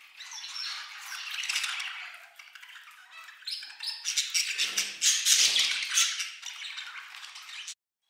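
Budgerigars chattering and warbling, a continuous busy stream of short chirps and squawks, louder in the middle, cutting off suddenly near the end.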